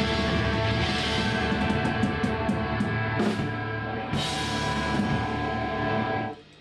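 Rock band playing full out: drum kit with crashing cymbals, electric guitar and bass guitar through amplifiers. The playing stops abruptly near the end.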